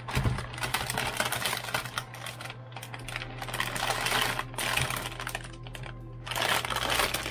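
Metallized anti-static bag crinkling and rustling as a motherboard is slid out of it: a dense, crackly rustle that eases off briefly about six seconds in, then picks up again.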